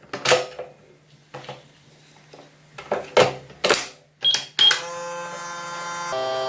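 Microwave oven being worked: several clunks and knocks of the door and handling, then two short high keypad beeps. After the beeps the oven starts running with a steady hum.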